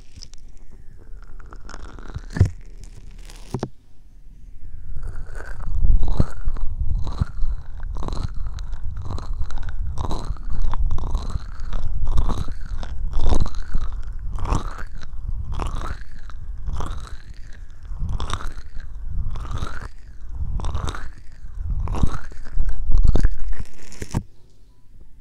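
Hands rubbing and cupping over the dummy ears of a binaural ASMR microphone, close to the mic with a deep rumble. A few light touches come first, then from about five seconds in a steady rhythm of strokes, roughly three every two seconds.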